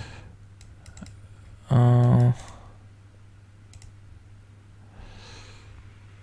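A man's short wordless 'hmm' with a flat, steady pitch about two seconds in, with a few faint clicks around it and a steady low hum underneath.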